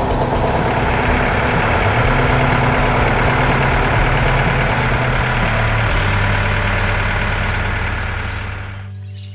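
Heavy farm machine's engine running steadily under load, with a broad mechanical rush over its low drone, fading out near the end.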